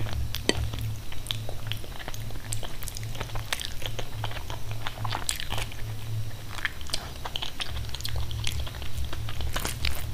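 Chewing a mouthful of food, with many short wet clicks and smacks of the lips and mouth.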